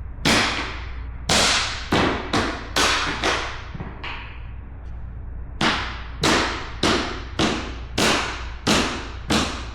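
Rubber mallet striking a tapping block against the edge of a click-lock vinyl plank, knocking the plank sideways to close the gap so its joint locks. About six sharp knocks, a pause of about two seconds, then seven more at an even pace.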